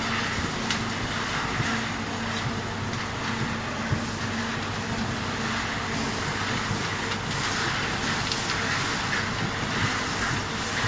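Gas-fired drum tea-processing machine running: a steady hiss with a low hum that drops out about two-thirds through. Fresh tea leaves rustle as they are pushed by hand into the drum.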